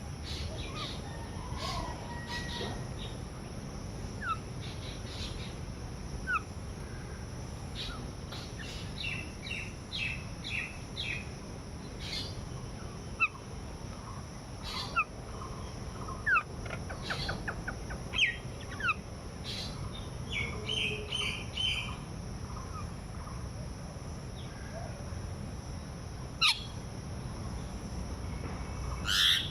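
Several birds chirping and calling in short, scattered notes and quick whistled slides.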